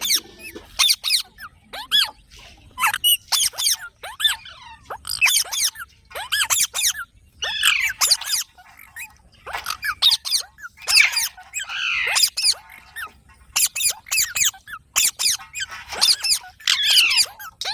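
Pet Indian ringneck parrot giving a rapid run of short, high squeaky calls and chirps, in clusters with brief pauses.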